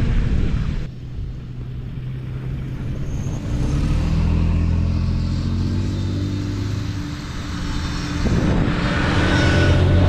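Jeep engine running steadily while driving. The sound drops off abruptly just under a second in, and the engine note thickens about three and a half seconds in.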